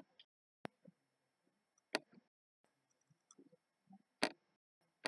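Faint room tone broken by about four sharp clicks at irregular intervals, loudest about two seconds in and near the end, with a few fainter knocks between and brief drops to dead silence.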